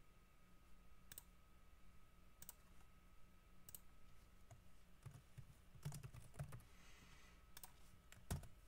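Faint, scattered clicks of a computer mouse and keyboard as text is typed in, a dozen or so short taps spread over several seconds.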